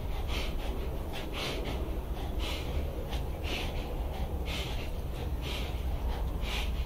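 Pit bull-type dog panting in a steady rhythm of about two breaths a second, over a steady low rumble.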